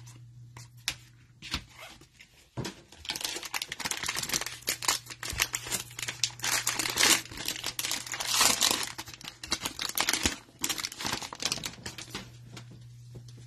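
Wrapper of a 2022 Mosaic Football trading-card hanger pack crinkling and tearing as it is opened and handled. Dense crackles start about two and a half seconds in and run until near the end.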